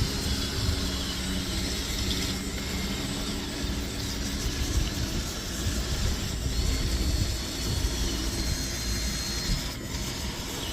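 Small electric motors and gearboxes of radio-controlled toy construction vehicles running, a thin high whine that runs for about two seconds, stops, and comes back about six seconds in for some three seconds, over a steady low rumble.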